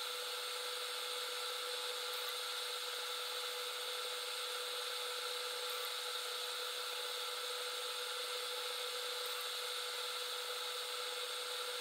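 Ortur Laser Master 3 diode laser engraver running a cutting pass, heard as a steady, even hiss with a constant mid-pitched hum.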